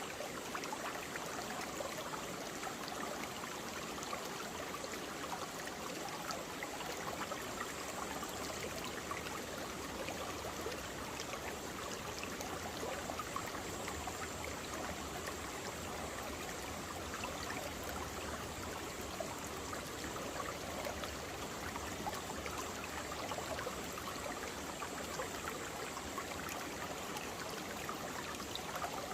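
Valley stream flowing steadily, its water rushing and burbling in an even, continuous sound.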